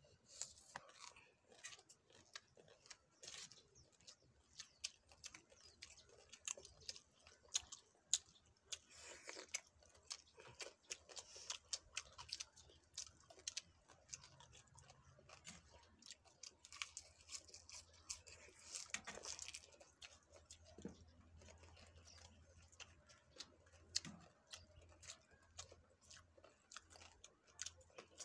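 Faint, close chewing of green papaya salad eaten by hand: irregular small crunches and wet mouth clicks, with fingers picking through the shredded salad on the steel tray.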